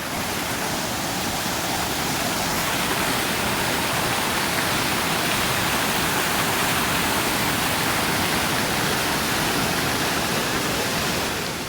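Rushing water, an even, unbroken sound that stops suddenly near the end.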